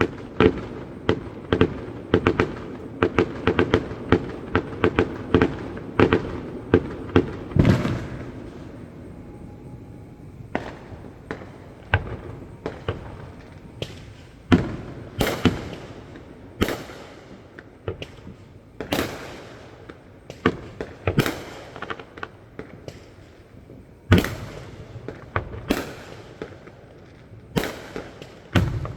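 Fireworks display: a dense run of rapid bangs and crackles for the first several seconds, then single loud booms every second or two.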